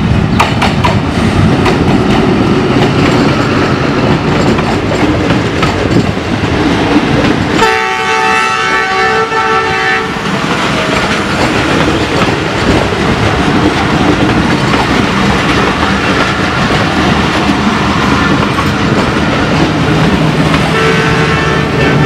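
Passenger train passing behind a GE ZCU-20 diesel-electric locomotive: steady rumble and clatter of coach wheels over the rail joints. A loud horn blast of about two seconds comes about a third of the way in, and a fainter horn sounds near the end.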